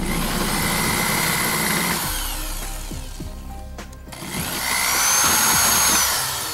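Cordless drill boring small tap holes through an aluminium bracket strip, in two runs: about two seconds at the start, then a louder one from about four and a half seconds, each with a steady whine of the motor and bit. Background music plays throughout.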